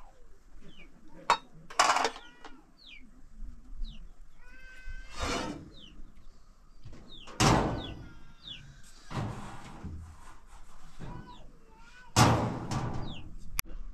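Kitchenware clattering in a few sudden loud knocks, with farm animals calling and short chirps in the background.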